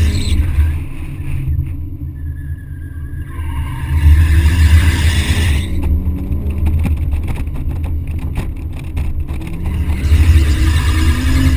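BMW 130i's 3.0-litre straight-six revving up and down as the car is drifted. The tyres squeal in spells, about four seconds in and again near the end, and wind buffets the outside-mounted camera microphone with a heavy rumble.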